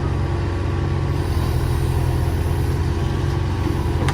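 Heavy diesel excavator engine running steadily at a low, even pitch.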